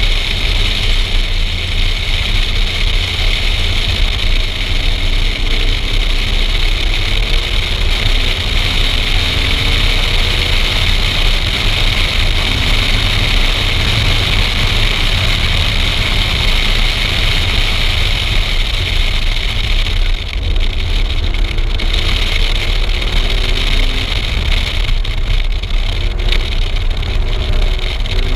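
Wind and road noise on a camera mounted outside a car at track speed, a steady rushing rumble that covers most of the sound. Under it the car's engine is faintly heard, its pitch climbing and dropping back several times as it accelerates through the gears.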